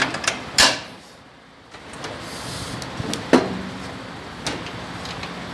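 Two sharp knocks about three seconds apart, the first the louder, with a lighter one after, as a Volvo truck's cab shock absorber is worked into its top mount.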